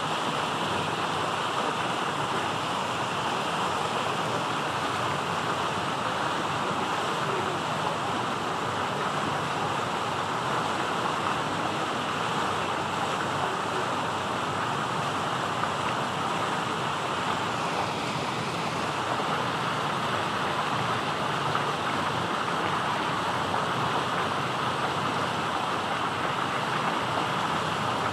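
Steady, even rushing noise that does not change, with no distinct events.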